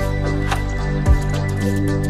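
Calm background music: sustained chords, with a deep falling bass hit about a second in and light ticking notes above.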